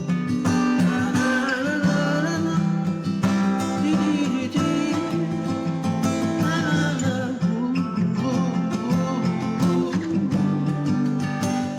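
Acoustic guitar playing a self-composed instrumental tune, plucked and strummed chords ringing steadily, with a wavering higher melody line over it at times.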